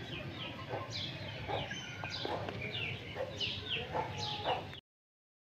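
Birds chirping and calling, many short chirps falling in pitch, over a low steady background; the sound cuts off abruptly near the end.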